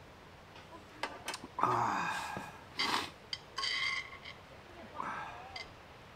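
Eating at a camp table: a few light clicks of utensils against dishes, then mouth sounds of chewing and slurping with short murmured hums.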